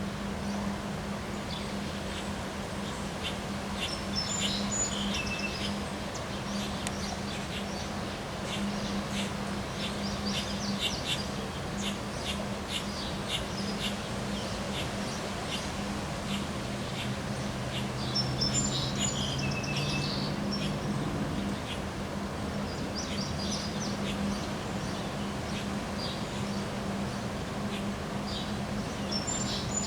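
A songbird singing a short, repeated high phrase three times, with scattered chirps between, over steady outdoor background noise and a constant low hum.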